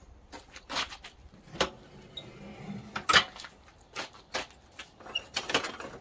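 Irregular metal clicks and clunks from a Craftsman lawn tractor's mower deck linkage being handled as the deck is lowered, the loudest clunk about three seconds in.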